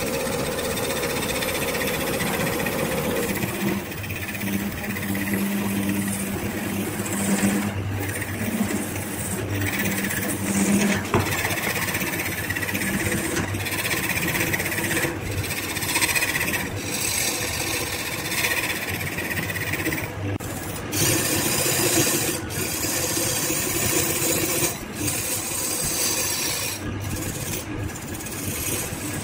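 Hand-held turning tool cutting a spinning bowl blank on a BURT wood lathe, a continuous rough cutting noise over the lathe's running motor, with a few brief breaks in the cut.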